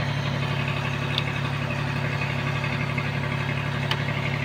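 Steady drone of heavy machinery running, an even hum with no change in pitch or level. Two faint clicks come through it, about a second in and near the end.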